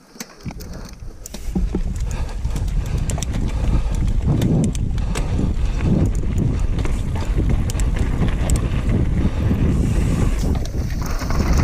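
Mountain bike rolling downhill over rock slabs and dirt trail: a steady low rumble from the tyres and wind on the microphone, with the bike's chain and parts rattling and clicking over the bumps. It is quiet at first and picks up about a second and a half in as the bike gets going.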